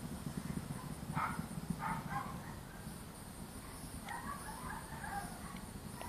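Dogs barking in the distance, a short bark about a second in, a couple around two seconds, and a run of barks from about four to five seconds, over the low rumble of a Delta IV rocket launch and a steady high cicada buzz.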